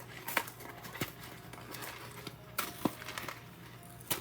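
Scattered light clicks and knocks of objects being handled, about six in all, over a steady low background.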